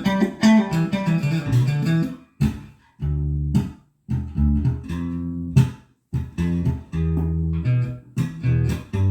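Warmoth Z short-scale PJ electric bass played fingerstyle: short phrases of low plucked notes, some cut off short, with brief pauses between phrases.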